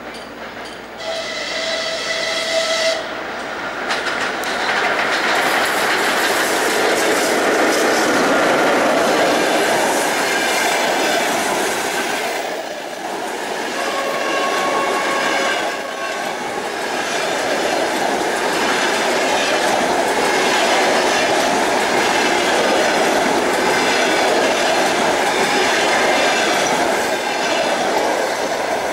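A ChS2K electric locomotive sounds its horn for about two seconds as it approaches. Then the locomotive and its passenger carriages run past with a loud, steady rush and wheels clattering over the rail joints, fading near the end.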